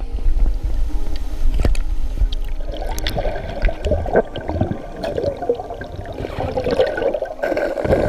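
Water sloshing and gurgling around a snorkeler's camera, with scattered knocks. The bubbling gets denser about three seconds in.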